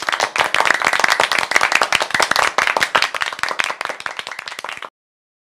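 Hands clapping in a group: a dense patter of separate claps that eases off a little and then cuts off abruptly about five seconds in.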